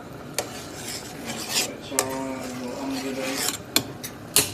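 A ladle scraping and clicking against a pot while skimming foam off boiling chicken broth, with a few sharp metal clinks.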